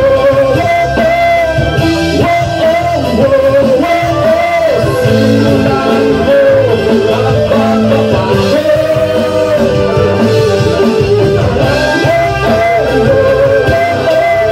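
Live reggae band playing, with a male singer singing into the microphone over electric guitar, drums and a trumpet-and-trombone horn section.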